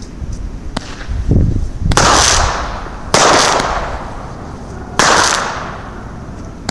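Nine-shot consumer firework cake firing: a low thump, then three sharp shots a second or two apart, each trailing off in a fading crackle.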